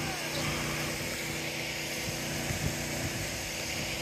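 Sprinkler heads of a newly installed aerobic septic system spraying during a test, heard as an even hiss under a steady low machine hum.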